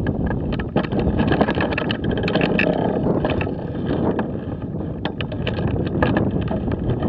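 Wind buffeting the microphone: a steady low rumble with many short crackles and pops.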